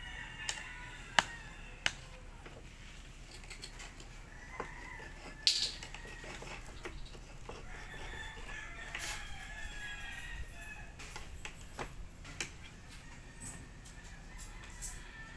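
Chickens clucking and a rooster crowing in the background, with a few sharp metallic taps of a knife point punching into a tin can's lid, the loudest a little over a second in and about five and a half seconds in.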